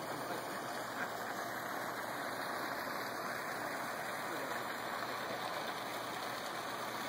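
Steady rushing noise of churning water from a pond aerator running, with a light tap about a second in.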